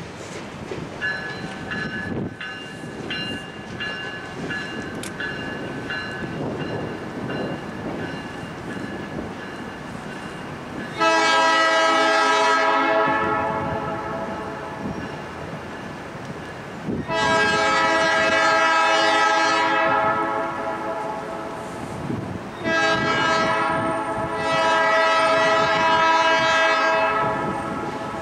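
A freight train of covered hopper cars rolls away on the rails, its wheels rumbling with a faint steady squeal. Then the locomotive's air horn sounds four blasts, long, long, short and long: the grade-crossing signal.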